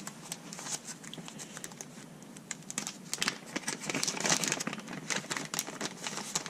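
Crinkling and crackling of a small plastic parts bag being handled and opened, as a new rubber grommet is taken out. There are many small clicks, busier from about three seconds in.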